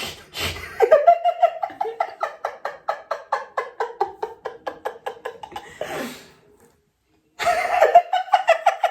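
A person laughing hard in quick repeated pulses, about five a second, for about five seconds. A second burst of laughter follows near the end.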